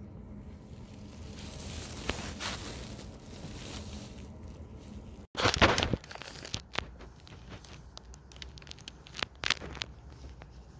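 Crinkling and rustling of a plastic sheet under a cat as it is stroked, with sharp crackles. The loudest moment is a short burst of rustling a little past halfway.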